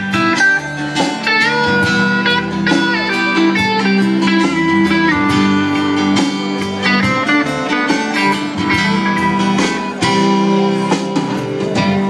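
Live country-rock band playing an instrumental break: a lead guitar melody over strummed acoustic guitars and drums.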